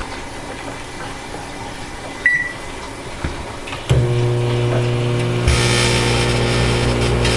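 A microwave oven keypad beeps once, then the oven starts about four seconds in with a steady electrical hum. About a second and a half later a loud hissing buzz joins the hum: the metal inside the oven arcing.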